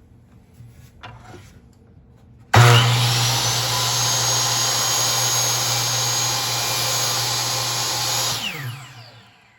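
DeWalt miter saw's motor switched on with an abrupt start, running at a steady high whine for about six seconds, then winding down with falling pitch once the trigger is released.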